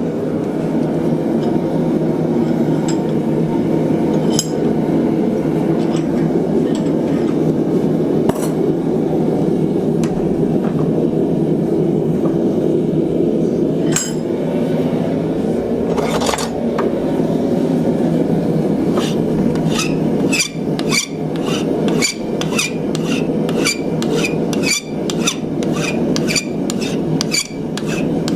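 Hand file rasping across a hot ½-inch steel bar, taking down a shoulder left from a hot-cut. It runs over a steady roar, likely the forge running. Scattered strokes and clinks at first settle, about two-thirds of the way in, into a regular stroke rhythm of about three a second.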